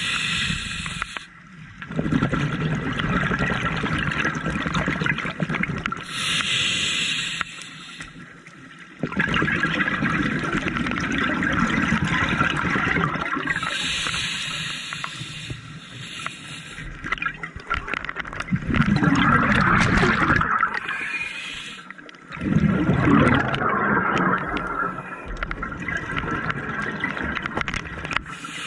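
Scuba diver breathing through a regulator underwater: short hissing inhalations alternating with longer bubbling, gurgling exhalations, several breath cycles over the stretch.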